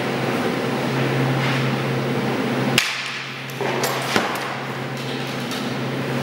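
Hockey goalie skates scraping and carving on synthetic ice panels, with a few sharp knocks of blade, stick or pads on the plastic surface, about three seconds in and again a second later. Under it runs a steady hum.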